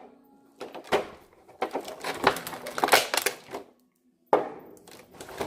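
A run of knocks and clatters from objects being handled and set down, with a brief dead gap about four seconds in.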